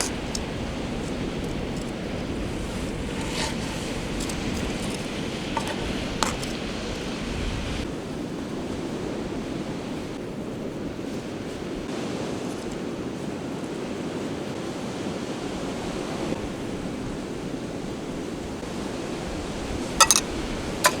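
Sea waves washing on the shore, a steady rushing, with wind buffeting the microphone in the first several seconds. A few brief clicks or knocks stand out, two of them near the end.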